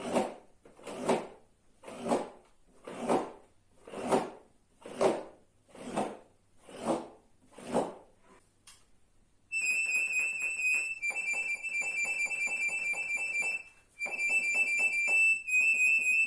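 Accordion played as sound effects: breathy, unpitched bellows swells about once a second, then, after a short pause, loud high-pitched notes repeated very rapidly in the treble, in phrases with brief breaks.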